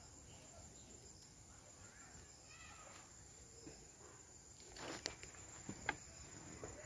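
Quiet outdoor background with faint rustling and a few short sharp clicks about five seconds in, as the camera and a plate of picked leaves are handled.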